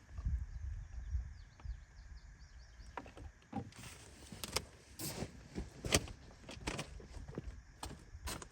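Scattered light clicks and knocks of hands working on an ATV, the sharpest about six seconds in, over a low rumble during the first second or so.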